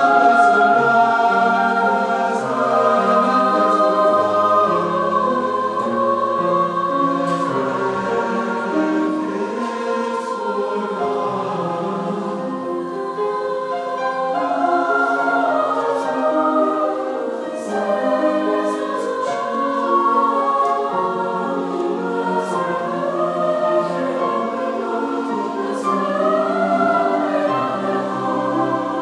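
School concert choir singing in several held, overlapping voice parts.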